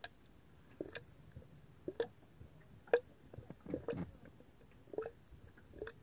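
Small waves lapping against a boat's hull: soft, wet slaps coming irregularly about once a second.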